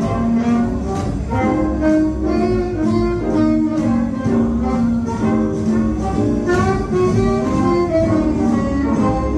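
Jazz music for dancing, with a walking bass line, melody notes moving step by step and a steady beat.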